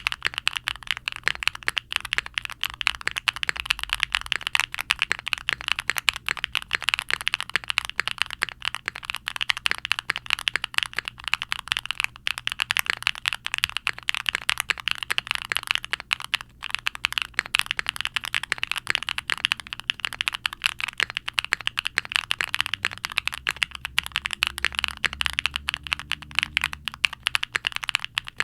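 Fast continuous typing on a QwertyKeys Neo65 mechanical keyboard with a POM plate, full foam dampening, HMX Siliworks Nap linear switches and GMK doubleshot ABS keycaps: a dense, steady stream of key strokes.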